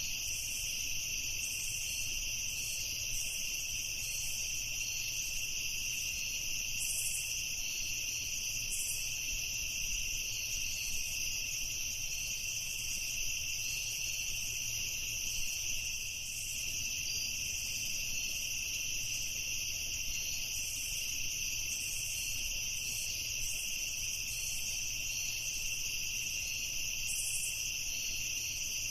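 Crickets chirping steadily in a constant high-pitched chorus.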